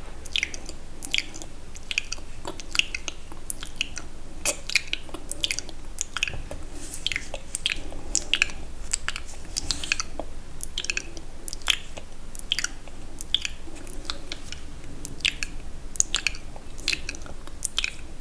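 Wet, sticky mouth sounds very close to the microphone: lip smacks and tongue clicks, about two or three a second, uneven.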